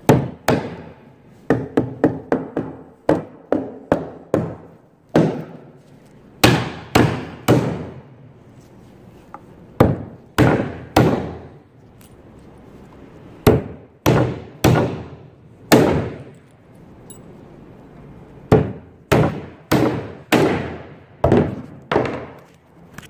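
Hammer driving nails into wooden boards: sharp, ringing blows in short runs of a few strikes each, with pauses between the runs.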